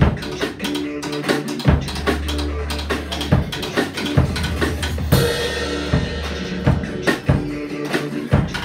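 Acoustic drum kit played in a steady beat of snare, bass drum and hi-hat, with a cymbal crash about five seconds in that rings on for a second or two. Under the drums runs a recorded pop song with a steady bass line.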